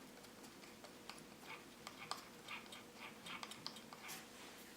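Faint, irregular light clicks and taps: a small plastic graphics-card cooler fan being handled, turned over and spun by hand to work freshly dripped oil into its bearing.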